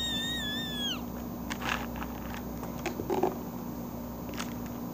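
A high-pitched squeal held for about a second at the start, then a few soft scuffs and taps over a steady low hum.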